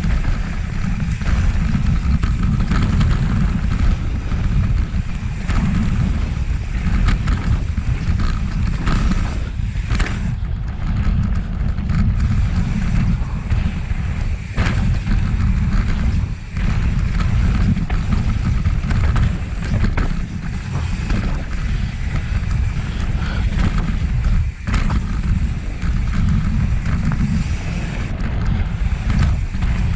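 Wind buffeting the microphone of a camera riding along on a mountain bike descending a dirt flow trail, a loud, steady low rumble, with the tyres and bike rattling over the trail and a few brief breaks in the rush.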